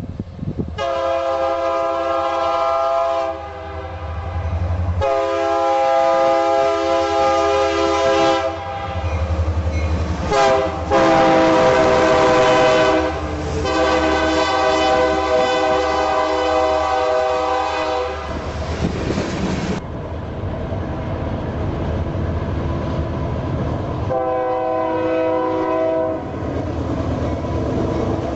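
Diesel freight locomotive's multi-chime air horn sounding five long blasts, the last one after a pause of several seconds, over the steady low rumble of the train.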